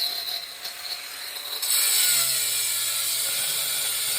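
Angle grinder with a 4 1/4-inch blade grinding a hole in tile with the tip of the blade, getting louder about a second and a half in as it bites in again.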